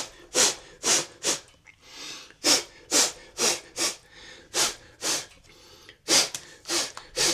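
A person blowing short, sharp puffs of breath by mouth into the open MacBook Pro to clear dust off the board, about two puffs a second, a dozen or more in all.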